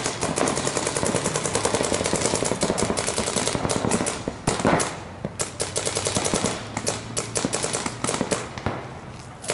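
Paintball markers firing rapid strings of shots, with a short lull a little past the middle and the fire thinning out near the end.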